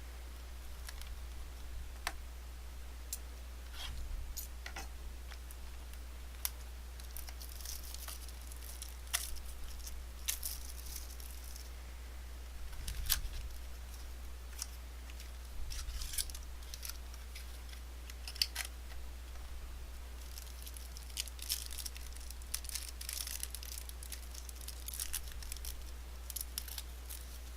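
Trading card packaging being opened and handled: tearing and crinkling of wrappers with scattered sharp clicks, busiest in two stretches, over a steady low hum.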